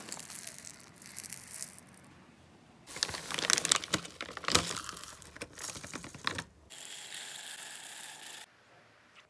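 Plastic bag crinkling and rustling as wax flakes are handled, with many small clicks. Then, about two-thirds of the way in, wax beads are poured into a stainless steel pot with a steady hissing patter that stops suddenly.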